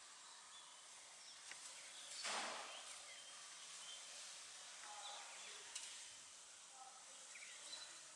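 Faint outdoor ambience with scattered short bird chirps over a steady hiss, and a brief rush of noise about two seconds in.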